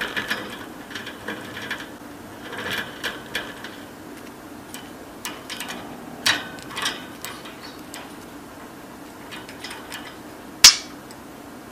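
Pet budgerigar's recording: irregular sharp clicks and taps with a few short scratchy bursts of chatter, and one loud sharp click about ten and a half seconds in.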